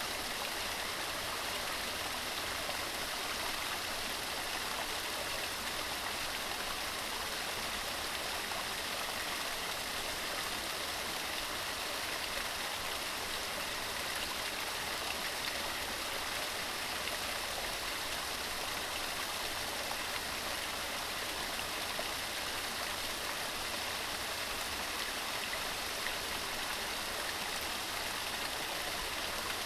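Mountain stream running over rocks: a steady, even rush of water with no breaks.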